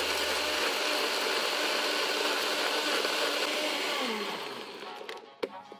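Personal-size push-down blender running steadily as it blends ice cubes and liquid into a slush. About four seconds in, the motor winds down with a falling whine, and a sharp click follows near the end.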